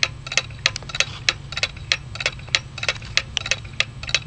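Antique circa-1845 Chauncey Jerome 30-hour brass clock movement ticking steadily, about three sharp ticks a second.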